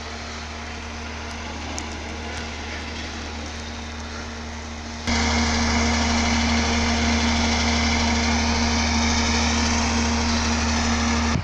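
A steady mechanical hum like a motor running at idle, holding one pitch. It gets markedly louder about five seconds in and cuts off suddenly at the end.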